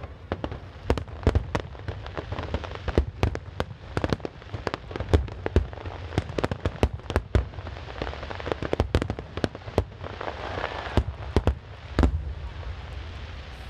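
Aerial fireworks shells bursting in rapid, irregular succession: many sharp bangs with crackling between them, thickest about two-thirds through, the last big bang near the end.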